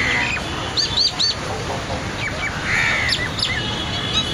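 Birds calling in the trees: a quick run of three high, arched chirps about a second in, more chirps around the three-second mark, and a few longer, harsher calls lower in pitch.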